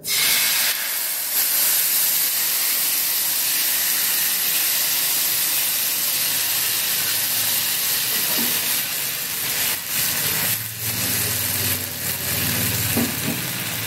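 Rice-flour chilla batter sizzling on a hot oiled tawa: the hiss starts suddenly as the batter hits the pan, then runs steadily.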